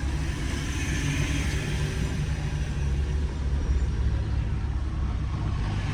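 Motor vehicle engine and road noise: a steady low rumble.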